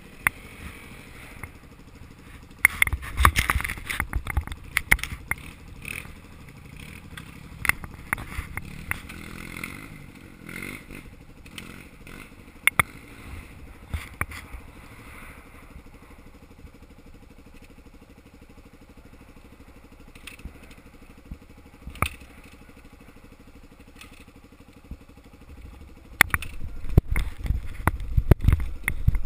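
Dirt bike engines running at low trail speed, getting louder in short bursts of throttle about three seconds in and again near the end. Frequent sharp knocks and rattles come from the bikes bouncing over the rough ground.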